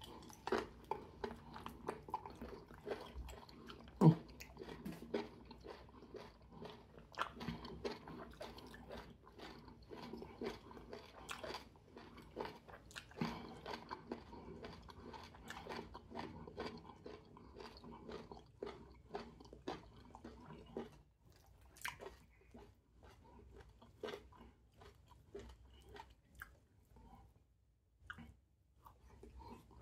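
Close-up chewing and mouth sounds of a man eating fufu with okra soup and meat by hand: wet chewing with many small clicks and smacks, and one sharper click about four seconds in. The sounds thin out to scattered quieter clicks in the last third.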